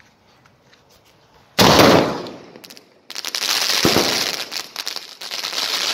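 A 3.5-inch Sony Fireworks 'Mela' aerial shell: one loud bang about a second and a half in, fading over a second, then from about three seconds a dense, rapid run of crackling reports with a dull thump among them as the shell breaks into many shots at once.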